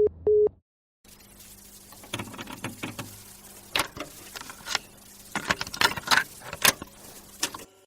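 Three short telephone beeps, then, after a brief gap, several seconds of irregular clicking and crackling rustle.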